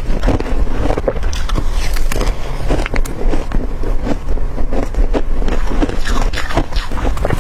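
Close-up crunching of hard crushed ice being bitten and chewed: a dense, continuous crackle broken by many sharp cracks as the pieces break.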